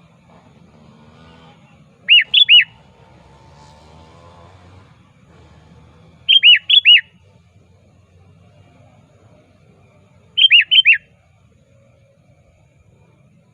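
Male sooty-headed bulbul (kutilang) calling loudly to rivals: three short phrases of three or four quick notes, each note sliding down in pitch, about four seconds apart.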